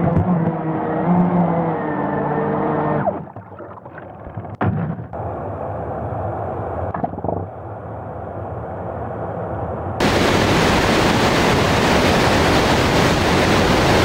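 An RC jet boat's electric motor and water-jet pump whining, the pitch shifting up and down, heard through the boat's own camera; it stops about three seconds in, leaving quieter knocks and a sharp click. About ten seconds in, a loud steady rush of river water and wind takes over.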